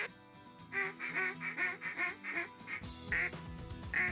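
Hand-blown duck call giving a fast string of quacks, followed by a couple of single quacks near the end, with background music underneath.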